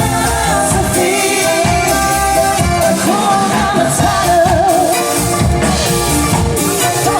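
Pop song with a sung melody over a steady beat.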